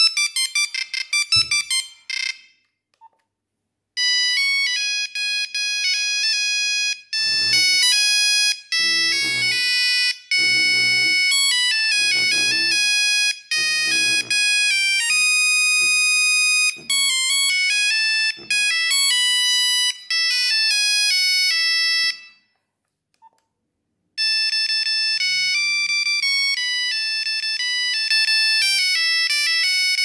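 Nokia 3310 monophonic ringtone previews beeping from the phone's speaker as the ringtone list is scrolled. One tune stops about two seconds in. After a short pause a second tune plays for about eighteen seconds, and after another brief gap a third tune starts.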